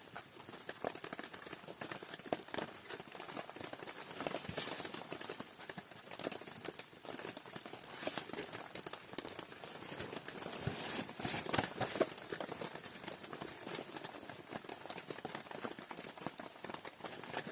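Small wood fire crackling, with a steady run of irregular snaps and pops and a few louder pops about two-thirds of the way through.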